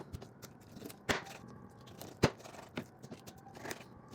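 A dull kitchen knife cutting through raw chicken, with a few separate sharp knocks of the blade striking down, the loudest a little past two seconds in, and faint tearing and scraping between them.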